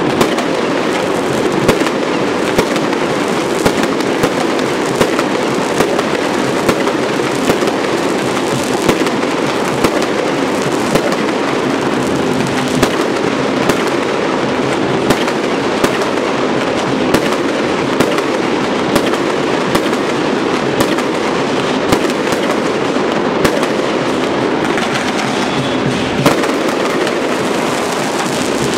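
Fireworks going off in a continuous barrage: dense crackling throughout, with sharper, louder bangs standing out about once a second.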